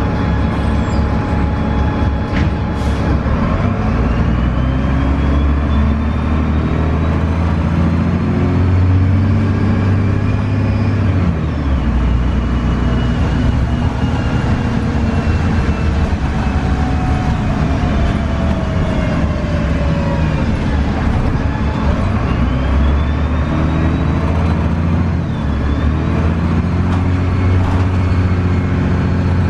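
Cummins ISC straight-six diesel of a 2002 Gillig Advantage transit bus, heard on board as the bus runs and accelerates. The engine note climbs, changes about a third of the way in, and climbs again near the end, with a thin high whine rising and falling over it.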